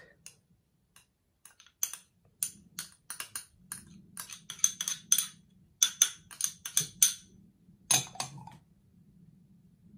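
Metal spoon clinking and scraping against a small glass bowl in quick, irregular taps as minced garlic is scraped out of it. Near the end, a glass bowl is set down on the table. A faint low hum runs underneath.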